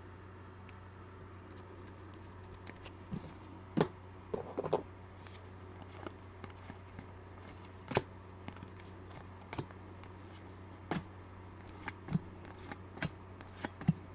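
Trading cards being flipped through by hand: irregular soft clicks and slides of card against card, with sharper snaps around four, five and eight seconds in, over a steady low hum.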